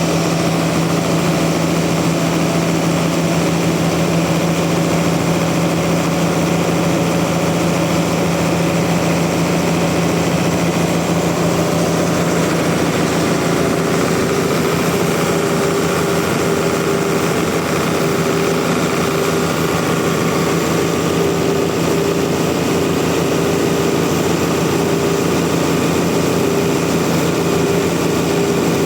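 Sawmill engine running steadily under a constant load, with a second, higher steady tone joining about halfway through.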